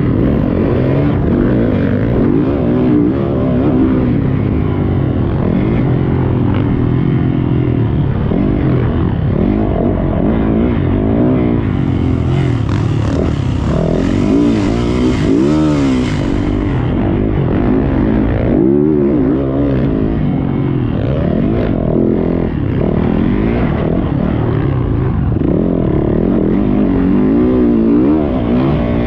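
Motocross bike engine heard up close from on board, revving up and dropping off again and again as the rider works the throttle through the track. A hiss rises over it for a few seconds around the middle.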